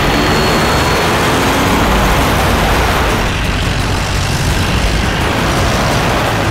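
An open jeep and an SUV speeding along a dirt track, their engines running hard with the noise of tyres on dirt and gravel, loud and steady.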